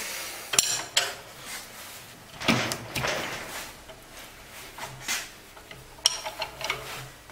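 Metal tool handling: a steel ring spanner clinks and knocks as it is picked up off a metal workbench and fitted onto the nut of a Bosch common rail injector held in a clamping fixture. There are several separate sharp metallic clicks and a longer scraping clatter a few seconds in.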